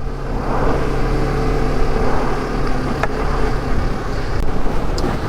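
Motorcycle engine running steadily at road speed, with strong gale-force wind rushing over the microphone.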